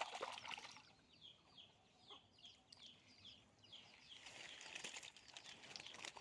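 Faint, high, short chirps from birds, repeating over and over, with a sudden loud noise at the start and a longer stretch of noise about four seconds in.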